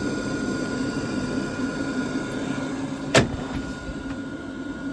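Gas boiler firing on maximum rate after a new brass diverter valve has been fitted: a steady hum with a faint high whine, and one sharp click a little over three seconds in.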